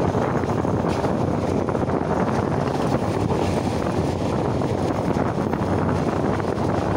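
Passenger train running along the track, heard from an open window: a steady rumble of wheels on rails with wind buffeting the microphone.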